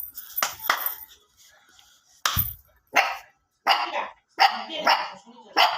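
A dog barking repeatedly: about eight short, sharp barks with uneven gaps between them. One bark about two seconds in comes with a low thump.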